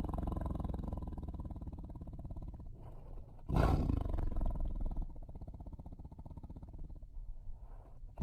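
Tiger growling low and rough, fading off, then a sudden loud roar about three and a half seconds in that trails back into a quieter growl.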